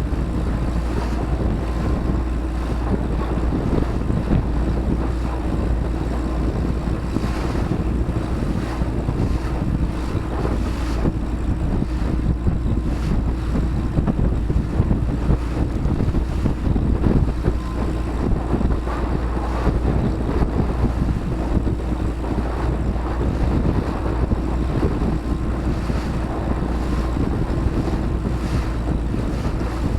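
Boat under way with its engine running as a steady low drone, with wind buffeting the microphone and water rushing past the hull.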